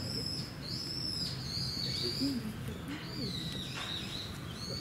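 High, drawn-out whistling calls, several in a row, each arching up and down in pitch, over faint voices in the background.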